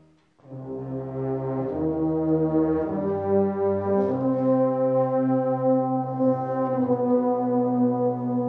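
A brass band plays a slow hymn in full, sustained chords. After a brief pause, a new phrase enters about half a second in, and the chords change every second or so before settling into longer held notes.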